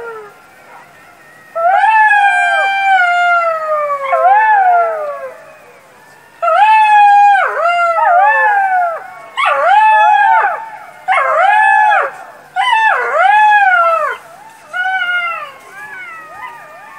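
Jackal howling: a run of wailing calls, each rising then falling in pitch. The first calls are drawn out; later ones come as shorter calls of about a second with brief gaps, fading near the end.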